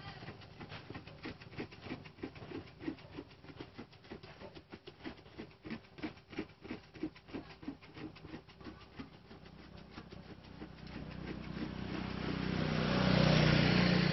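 Rhythmic back-and-forth scraping of a motorcycle's rubber inner tube with a thin abrasive strip, about three strokes a second, roughening the rubber for a patch. In the last few seconds a vehicle engine grows louder and covers the scraping.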